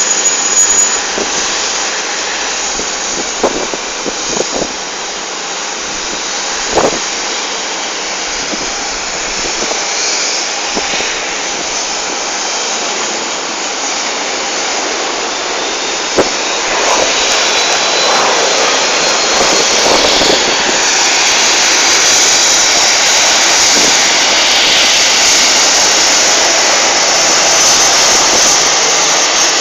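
Airliner jet engines running, a steady rushing noise that grows louder about halfway through, with a faint rising whine. A few short knocks in the first seconds.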